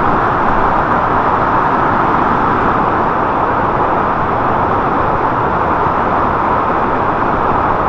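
Steady rush of a forest waterfall and its stream, a loud, even water noise.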